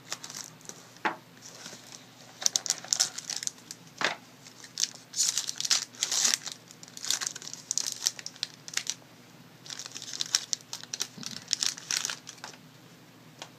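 Plastic shrink-wrap being torn and peeled off a sealed trading card box, crinkling in irregular bursts with brief tearing sounds.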